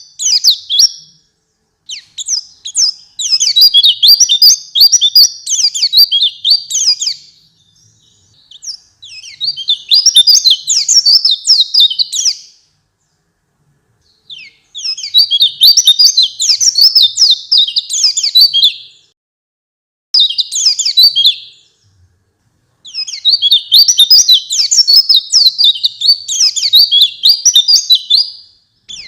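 White-eye (pleci) singing a fast, high, twittering warble in repeated bouts of about two to five seconds, with brief silent gaps between them.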